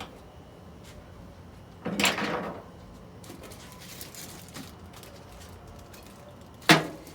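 Hard objects handled during an engine teardown: a short scraping clatter about two seconds in, then a single sharp knock near the end, the loudest sound.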